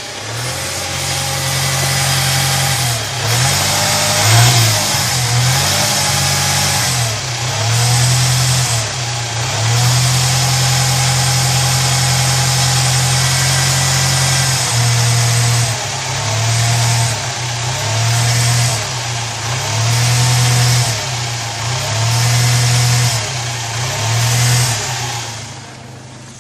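Car engine revved again and again, its pitch and loudness swelling and falling back with each rev. There is one longer held rev in the middle.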